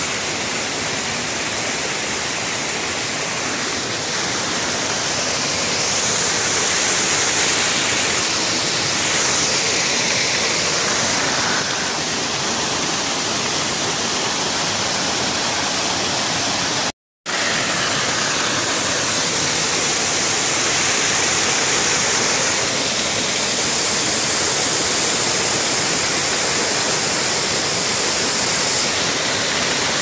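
Steady rushing of water from a small waterfall and stream, with a brief complete dropout a little past halfway.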